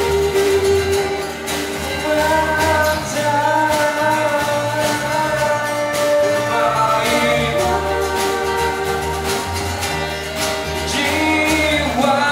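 Live band playing a song: a male singer holding long notes over strummed acoustic guitars and a steady beat.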